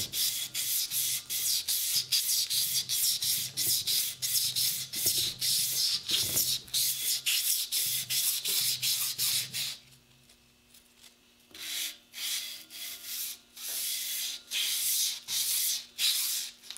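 400-grit sandpaper worked back and forth around a Ford 351M crankshaft journal to polish it: rapid rasping strokes, about three a second. After about ten seconds the strokes stop for nearly two seconds, then start again.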